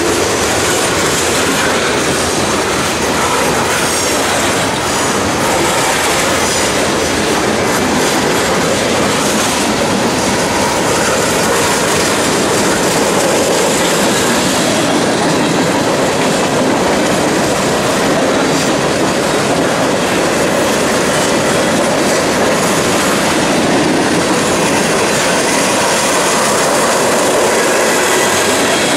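Mixed freight train's boxcars and hopper cars rolling past at close range: a steady, loud rumble of steel wheels on the rails.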